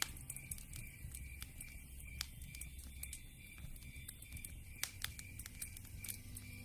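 Wood fire crackling: irregular sharp pops and snaps over the low rumble of burning logs, with one louder pop about five seconds in.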